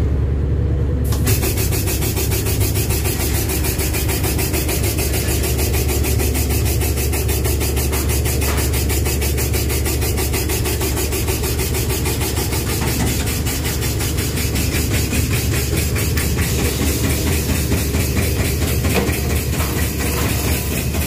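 Lube truck's engine running with a steady low hum. About a second in it is joined by a rapid, even pulsing as the oil pump starts, pumping oil through the hose reel and out of the dispensing gun.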